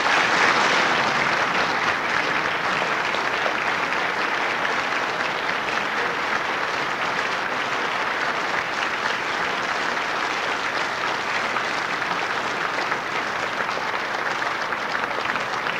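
A large audience applauding at the close of a speech, starting suddenly at full strength and then holding steady, on an old cassette tape recording.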